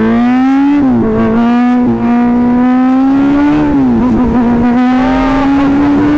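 Kawasaki Ninja 1000's inline-four engine pulling hard through the gears, heard from the rider's seat. Its pitch climbs steadily and drops briefly at two upshifts, about one and four seconds in.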